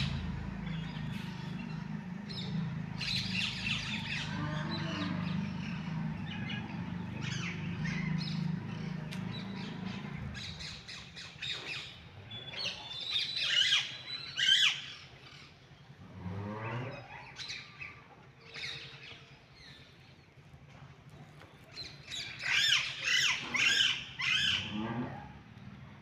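Birds calling and squawking in a village, many short harsh calls overlapping, with the loudest bursts about halfway through and again near the end. A low steady hum lies under the first ten seconds, then stops.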